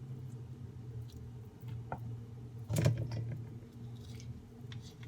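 A few light knocks and clicks of kitchen utensils at a cutting board during vegetable chopping, the loudest about three seconds in, over a steady low hum.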